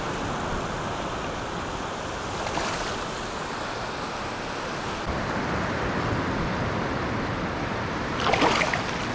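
Small surf waves washing and lapping in shallow water, a steady rush of moving water.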